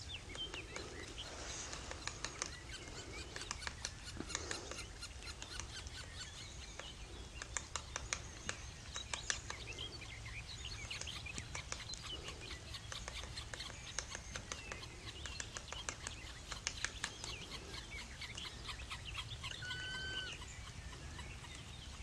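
Birds chirping and calling over a steady low background rumble, with many quick ticks through the middle. Near the end comes a short, clear call with overtones.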